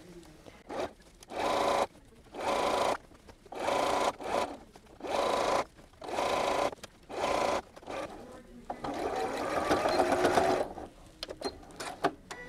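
A Janome computerized sewing machine stitching in about half a dozen short, stop-start runs, then one longer run of about two seconds near the end, sewing down a folded fabric hem.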